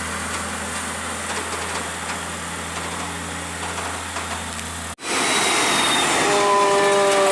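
Heavy truck engine droning steadily on the climb. About five seconds in the sound cuts off abruptly to a louder, noisier passage in which a long, drawn-out whine slowly drops in pitch.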